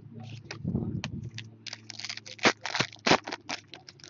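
Trading cards and a foil pack wrapper being handled: a quick run of crisp clicks, flicks and crinkles, with two sharper snaps about two and a half and three seconds in.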